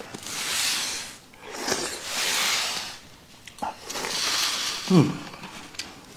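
A man slurping hot food off his chopsticks: three long slurps, then a short falling hum about five seconds in.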